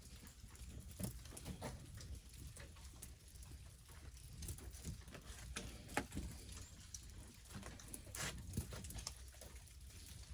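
Faint, irregular pattering of ice pieces dropping and ticking as ice breaks off thawing trees, with one sharper tick about six seconds in and a short flurry near the end.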